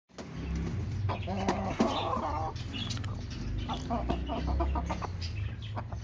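Aseel chickens clucking: a longer call about a second in, then a quick run of short clucks around the four-second mark, over a low steady hum.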